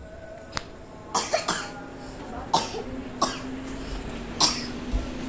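A child coughing over and over: about seven short coughs, three of them in quick succession just after a second in, the rest spaced out.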